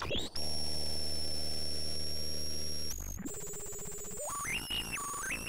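Synthesized logo-intro sound effects: a steady high tone over a low buzz for about three seconds, then, after a short break, electronic tones that step up and down in pitch.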